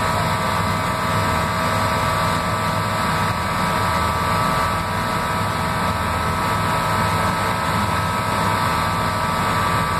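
Floatplane engine and propeller droning steadily, heard from inside the cabin while the plane taxis on the water.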